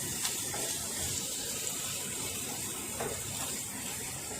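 Capsicum frying in hot oil in a pan, a steady sizzle, with a couple of light knocks.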